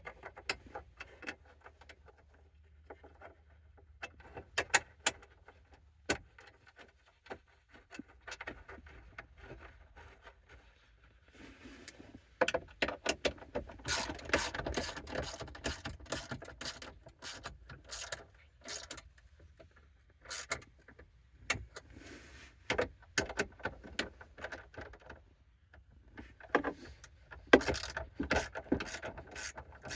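Hand work on car interior parts: irregular clicks, taps and short rattling clatters of tools and metal and plastic pieces being handled and fitted, busiest in the middle and near the end.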